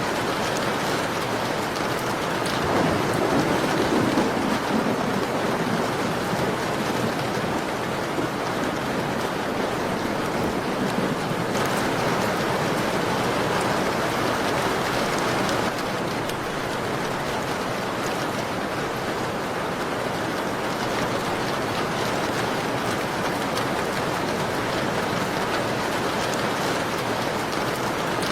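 Steady heavy rain pattering on a window, an even dense hiss with a low swell about three to four seconds in.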